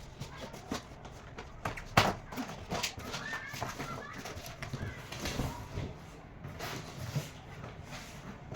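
Irregular knocks and clatters of things being handled, with one loud sharp thump about two seconds in.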